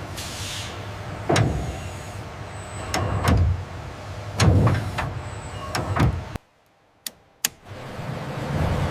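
Factory machinery running with a steady low hum, with four heavy mechanical clunks and whirs a second or so apart. The sound cuts out briefly near the end, with a couple of sharp clicks.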